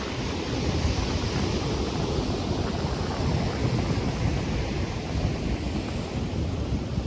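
Ocean surf washing steadily on the shore, with wind through palm trees and gusts buffeting the microphone.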